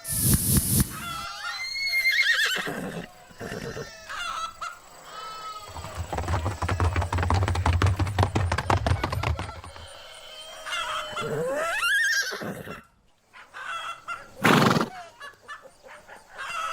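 Horse neighing and whinnying several times in wavering, rising calls. In the middle there is a long, rapid, rattling stretch of several seconds, and a short loud burst near the end.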